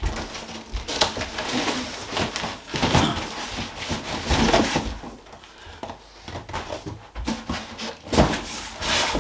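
Cardboard boxes scraping and rustling as an inner box is worked out of a shipping carton, with scattered knocks. The loudest is a thud about eight seconds in as the box is set down.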